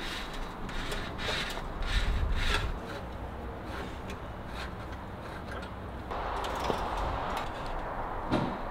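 Electrical wire being handled and pulled along a vehicle underside: scattered rustles and clicks, then a longer scraping rub about six seconds in.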